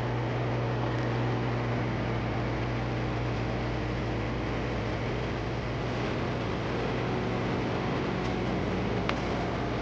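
Sea surf washing in a steady, even rush, with a constant low hum underneath and a faint click about nine seconds in.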